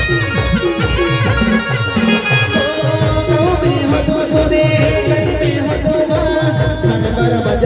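A folk band playing: a fast, steady drum beat under a wavering melody line. A new sustained lead line comes in about two and a half seconds in.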